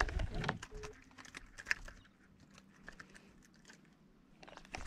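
Light, irregular clicks and taps from a baitcasting rod and reel being handled and reeled, thickest in the first two seconds, then only a few soft ticks.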